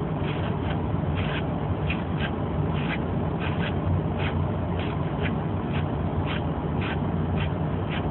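Grooming scissors snipping the hair around a dog's eyes, short crisp snips about twice a second, over a steady low machine hum.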